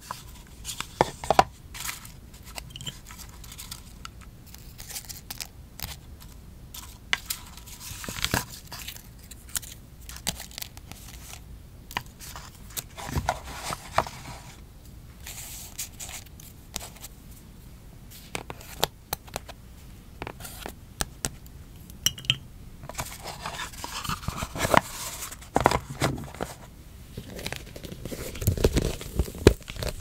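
Close-miked paper-craft handling: stickers and paper being peeled, rustled and pressed onto a notebook page, with many small scattered taps and clicks of tweezers and stationery. Louder handling with low thumps near the end.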